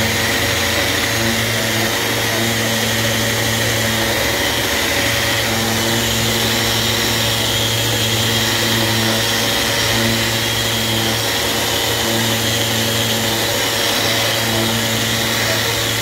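Festool Rotex RO 150 eccentric (random-orbit) sander running steadily with a 220-grit disc pressed flat on a block, sanding the surface.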